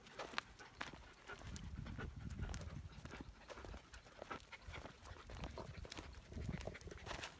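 Standard poodles panting as they trot along on leash, with a patter of footsteps and many small clicks through it. A low rumble runs underneath.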